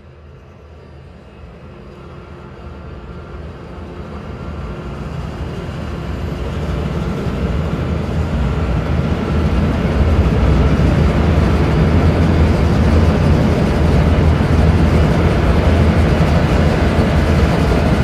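A Chinese traditional orchestra playing a dense, noisy mass of sound, heavy in the bass, with no clear melody. It grows steadily louder for about ten seconds, then holds at full loudness.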